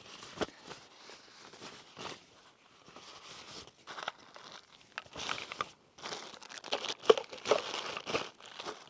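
Rustling and crinkling of plastic bags and a nylon stuff sack being handled while gear is sorted, with a few light clicks and knocks. The handling gets busier and louder about halfway through.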